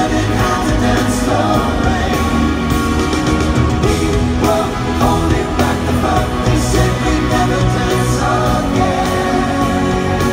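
Live pop ballad from a male vocal group: sustained singing over a full band backing, loud and unbroken throughout, heard through the arena's sound system.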